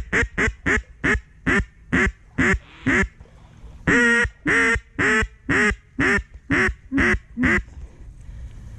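Duck call blown to lure passing ducks: a quick run of about nine loud quacks, a brief pause, then about eight more evenly spaced quacks, stopping near the end.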